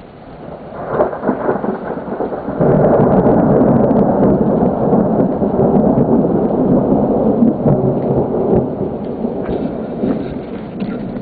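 A long peal of thunder rolling: it starts with a crackle about a second in, swells to a loud rumble a couple of seconds later, and slowly dies away. Light rain patters underneath.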